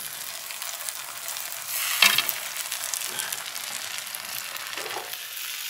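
Food sizzling in a frying pan on a portable butane gas stove while a metal spoon stirs and scrapes through it, with a sharper clatter about two seconds in.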